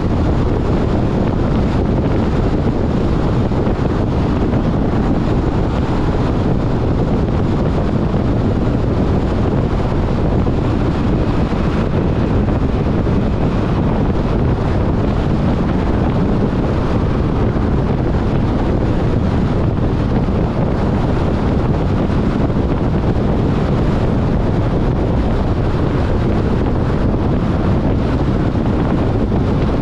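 Steady, loud rumble of wind and road noise from a car driving at highway speed.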